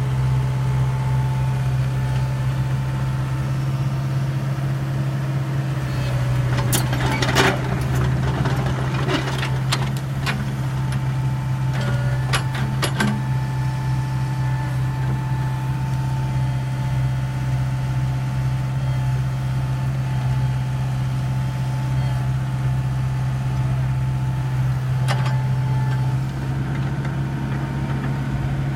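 Komatsu PC70 excavator's diesel engine running steadily under work, with a cluster of sharp clanks and knocks about a quarter of the way in and one more near the end as it digs.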